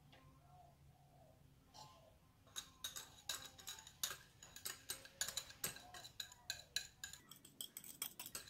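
Metal wire whisk scraping and clinking against a small glass bowl as it is scraped out, a quick irregular series of light clinks starting a couple of seconds in and continuing.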